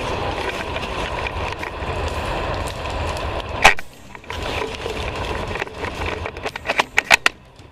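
Steady rustling, then one sharp crack of an airsoft sniper rifle shot a little over three seconds in, and a quick run of sharp clicks near the end.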